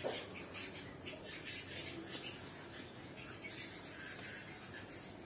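Dry, crumbly egg-food paste being poured into a plastic bowl on a kitchen scale: a faint, irregular pattering rustle of falling crumbs.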